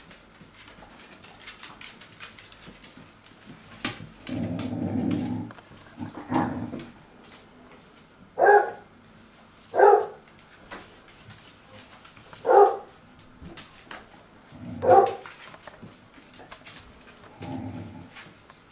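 Basset Artésien Normand puppies barking: a longer, lower call a few seconds in, then about five short, sharp yaps spaced a second or two apart, over light clicking of claws on a tile floor.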